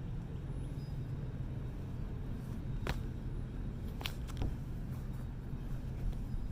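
Steady low outdoor rumble with three sharp clicks about three, four and four and a half seconds in.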